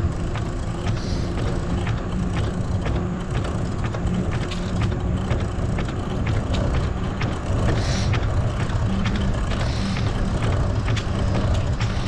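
Bicycle being ridden along a trail: a steady low rumble of tyres and wind, with frequent irregular clicks and rattles from the bike.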